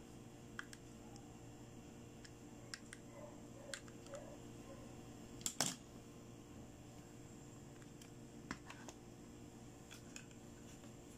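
Hard plastic toys being handled: scattered light clicks and taps, with a sharper double click about halfway through, over a faint steady hum.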